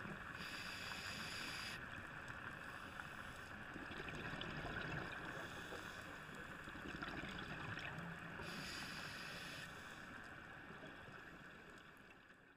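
Scuba diver's breathing heard through an underwater camera housing: a steady hiss with bursts of exhaled regulator bubbles every few seconds, fading out near the end.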